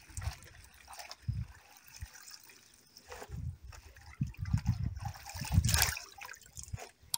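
Amaranth leaves being swished by hand in a basin of water and lifted out dripping, with irregular splashes and trickles. Some low dull thuds come about four to six seconds in.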